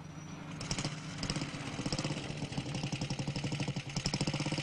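Motorcycle engine running with a rapid, even firing beat; it becomes much louder about half a second in and louder again near the end.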